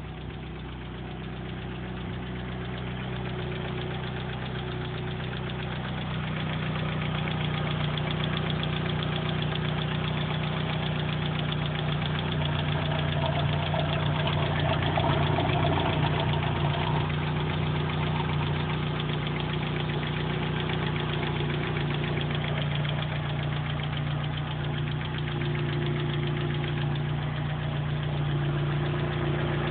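Mitsubishi 4G63 inline-four engine running steadily at idle, making an abnormal noise the owner cannot identify.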